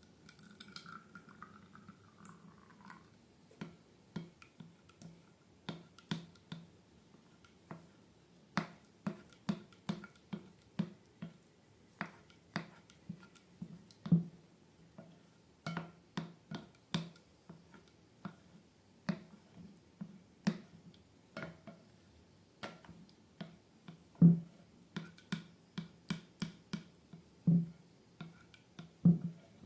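Slime being squeezed and poked, giving irregular wet pops and clicks, about one to three a second, some louder than others.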